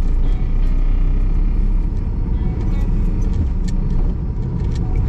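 Car engine and road noise heard from inside the cabin while driving, a steady low rumble, with a few light clicks in the second half.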